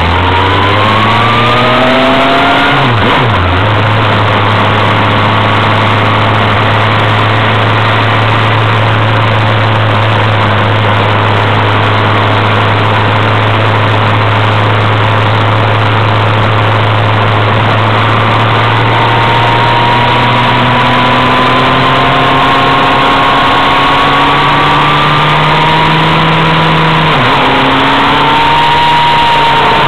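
A vehicle engine under way. Its pitch climbs at first and then holds steady for a long stretch. Over the second half it climbs steadily, drops sharply about three seconds before the end as at a gear change, and climbs again.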